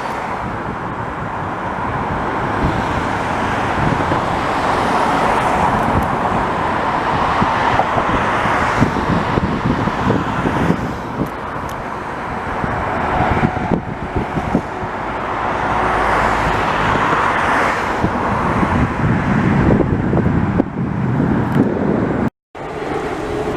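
Jet airliner flying past low near the airport, its engines a steady noisy rush that swells and eases. There is a brief dropout near the end.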